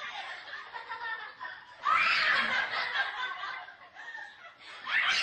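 Children laughing excitedly, loudest in bursts about two seconds in and again near the end.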